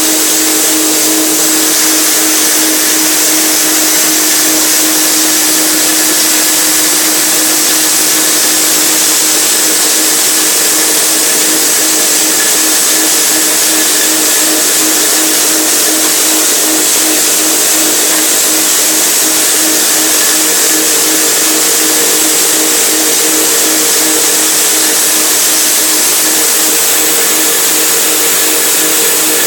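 Electric forage chopper used for grinding corn, running at speed: a loud, steady hum over a constant rushing hiss.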